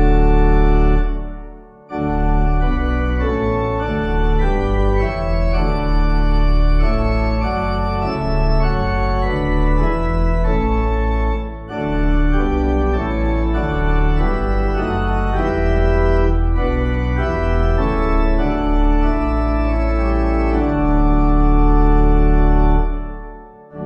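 Organ playing a hymn tune in sustained full chords as accompaniment for the first verse, with a short break about two seconds in and another near the end, where the phrases close.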